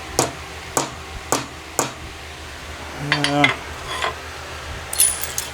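Four light, sharp taps on metal about half a second apart, a small hammer tapping a metal part into fit. A short voiced sound follows about three seconds in, then a brief scrape near the end.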